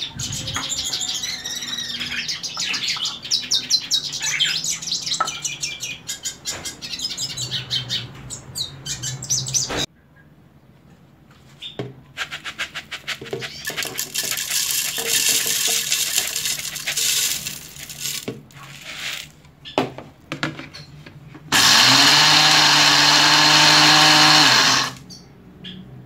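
Small birds chirping over faint crackling for the first ten seconds, then dry, crushed eggshells rattling and crackling as they are poured into a plastic blender jug. Near the end an electric blender runs steadily for about three seconds, grinding the eggshells into powder; this is the loudest sound.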